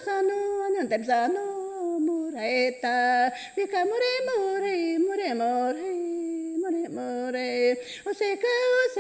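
A woman singing a traditional Awajún song solo and unaccompanied, in long held notes that step up and down between a few pitches with short breaths between phrases.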